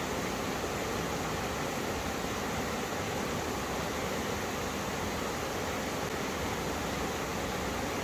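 Mountain stream water rushing and splashing steadily over rocks where two valley streams meet, a full, even rush of white water.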